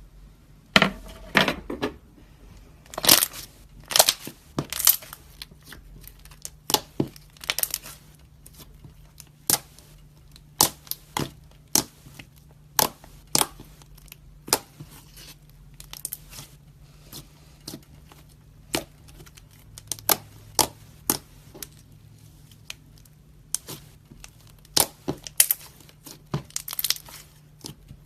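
Slime being pressed and pulled against a racket's strings, making irregular sharp crackling pops, one or two a second and sometimes in quick clusters.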